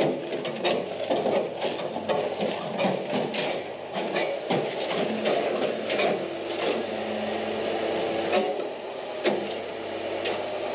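Flatbed tow truck's tilted loading bed being worked to shake a crashed car off its end: a run of rattling clanks and knocks from the bed and car, then a steady mechanical hum from the truck's hydraulics that cuts off about eight seconds in.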